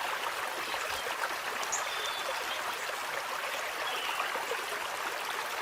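Steady rushing of a flowing stream, even and unbroken.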